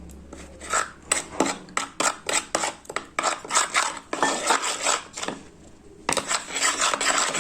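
A spoon stirring a spiced water mix in a bowl: quick, rapid clinks of the spoon against the bowl, with stretches of scraping around the sides.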